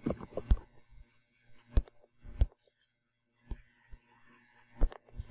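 Computer keyboard and mouse clicks: a quick run of keystrokes at the start, then single sharp clicks every half second to a second as answers are submitted and picked.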